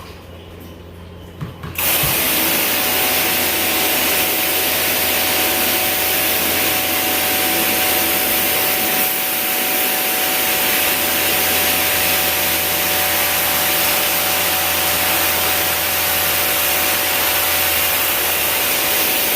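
A motor-driven cleaning machine is switched on about two seconds in and keeps running steadily, with a loud hiss over a low hum.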